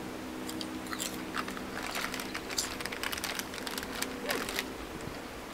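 Potato chips being bitten and chewed: a run of irregular, crisp crunches.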